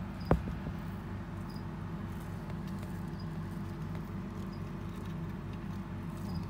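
A steady low mechanical hum with a fast pulsing beat, broken by one sharp knock about a third of a second in. Faint short high chirps come every second or two.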